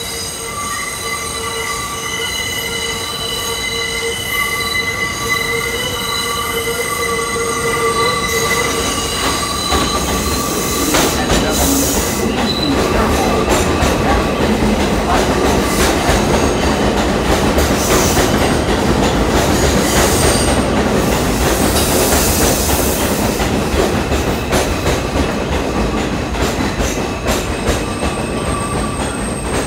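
New York City Subway train screeching its wheels in a steady, high squeal made of several tones as it takes a curve on elevated track. From about ten seconds in it runs into the station, and a louder rumble and rattle of wheels and cars takes over.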